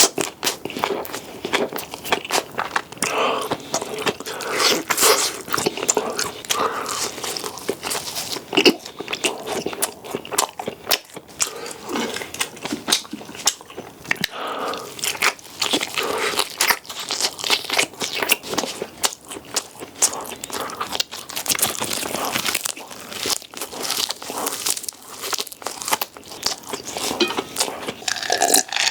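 Close-miked chewing and biting of food: a dense, continuous run of wet, crunchy clicks and crackles.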